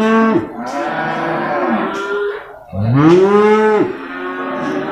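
Penned cattle and water buffalo mooing: a long call that rises and falls in pitch ends just after the start, a second one comes about three seconds in, and fainter calls from other animals overlap between them.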